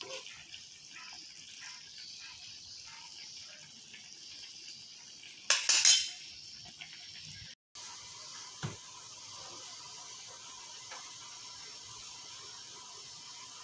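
Chicken soup simmering in a frying pan on a gas stove, a steady hiss. About five and a half seconds in, a metal spoon clatters against the pan for a moment, and a soft thump follows a few seconds later.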